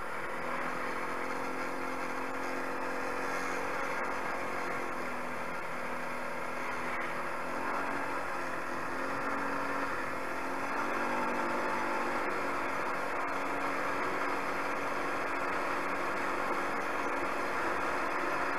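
250 cc quad ATV engine running while the quad is ridden, its note rising and falling a little with the throttle, over a steady noisy rush.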